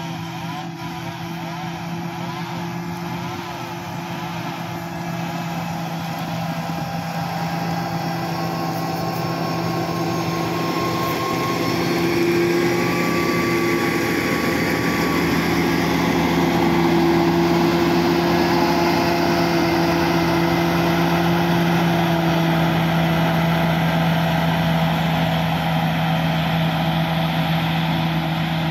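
Caterpillar motor grader's diesel engine running steadily under load as its blade scrapes and pushes loose gravel, growing louder as the machine comes close.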